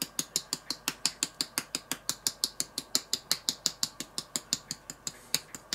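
Pepper mill being turned to grind pepper, a steady run of ratcheting clicks at about eight a second.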